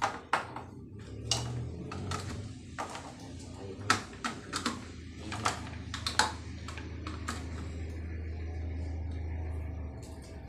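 A run of irregular sharp clicks and light knocks, then a steady low hum from about seven seconds in.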